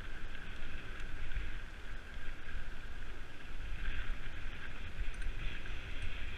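Mountain bike rolling along a dirt track, a steady rumble of tyres and bike noise mixed with wind buffeting the camera microphone.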